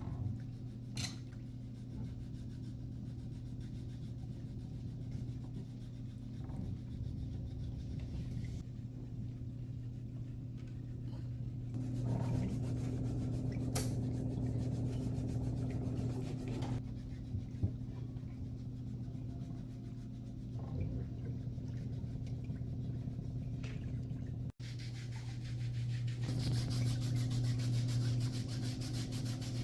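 Rubbing and scraping on skin during a pedicure, over a steady low electrical hum from a salon machine. The rubbing grows louder and hissier a few seconds before the end.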